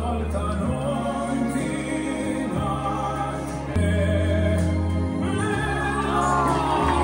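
Music with choir-like singing over long held bass notes; a sung line glides near the end.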